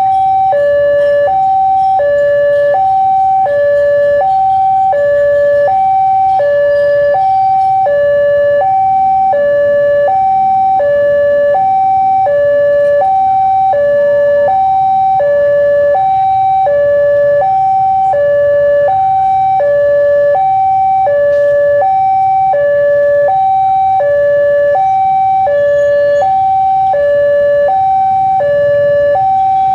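Railway level-crossing warning alarm sounding as a train approaches: two electronic tones, high and low, alternating steadily, each held about two-thirds of a second, over a faint low rumble.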